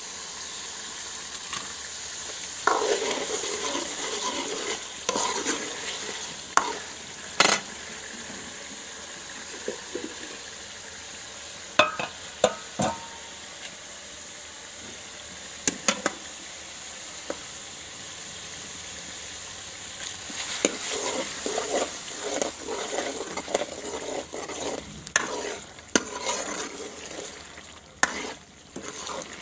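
Chicken and masala sizzling in a steel karahi while a metal spoon stirs and scrapes around the pan, busiest about three seconds in and again in the last third, with a number of sharp clinks of the spoon against the metal.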